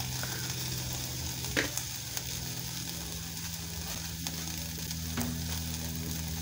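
Beef frying in a stainless steel pot on a gas stove, its water cooked off: a steady sizzle, with two sharp clicks, one about a second and a half in and one about five seconds in.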